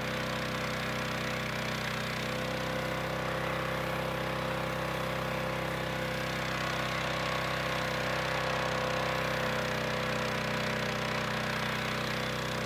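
Pressure washer running steadily, with a foam cannon on its wand spraying soapy foam: an even hiss of spray over the machine's steady hum.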